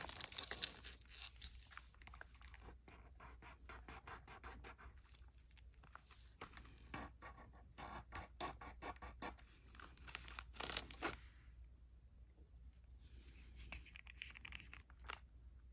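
Faint handling noises of a small metal bracelet: a run of light clicks, taps and scraping, thicker through the first part with a louder burst of scraping around ten seconds in, then sparser.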